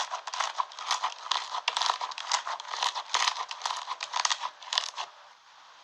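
Slime being squished and worked by hand: a rapid run of crackles and pops that stops about five seconds in.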